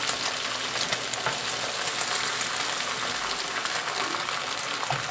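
Beaten egg mixture sizzling steadily in hot olive oil in a frying pan, with small crackles through the hiss.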